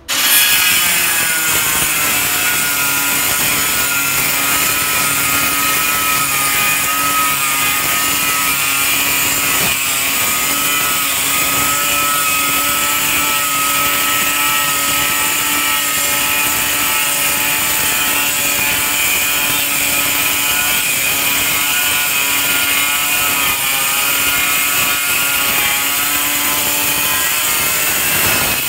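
Handheld angle grinder with a cutting disc running steadily under load as it cuts through a large floor tile: a loud, continuous motor whine over a harsh grinding hiss, starting abruptly at the outset.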